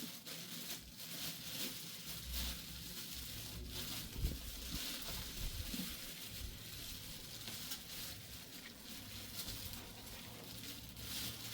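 Faint, steady sizzling of food frying in a pan, with scattered small clicks.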